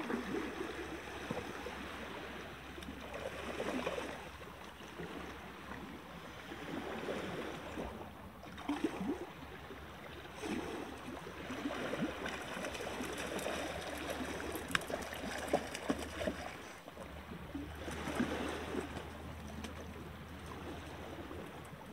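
Water sloshing and lapping at a rocky shoreline in uneven swells, over a low steady rumble.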